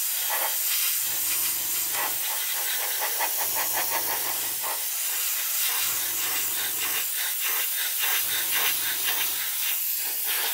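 Airbrush spraying a thin coat of primer, a steady hiss of air and paint. Under it, a low hum starts and stops about every two and a half seconds.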